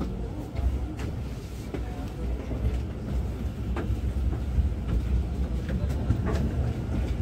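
Inside a carriage of the KA Bengawan Solo passenger train running slowly: a steady low rumble, with a few sharp clicks and knocks here and there.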